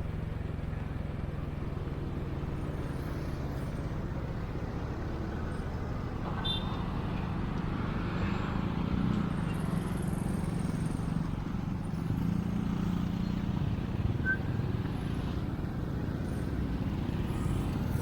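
Motor vehicle engine noise: a steady low hum whose pitch shifts a little, swelling somewhat in the middle.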